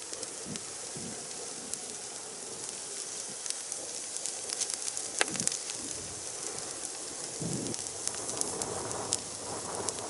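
Brush pile of cut branches burning, a steady crackling hiss with many sharp pops scattered throughout.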